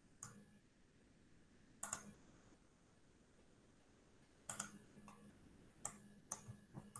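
Faint, scattered clicks of computer mouse and keyboard use over quiet room tone: one near the start, one about two seconds in, then a quicker run of clicks from about four and a half seconds on.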